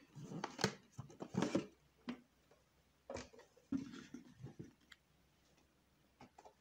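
Cardboard packaging being handled as a boxed nail printer is lifted out and set down: scraping rustles and light knocks of cardboard and plastic. They are busiest in the first couple of seconds and die away near the end.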